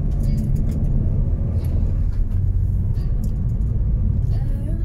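Car driving, heard from inside the cabin: a steady low rumble of engine and tyre noise on the road.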